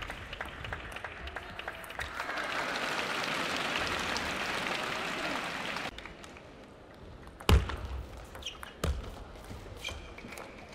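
Arena crowd applauding, swelling, then cut off abruptly a little over halfway through. After that the hall is quieter, with a few sharp single clicks of a table-tennis ball. The loudest click comes about a second and a half after the applause stops.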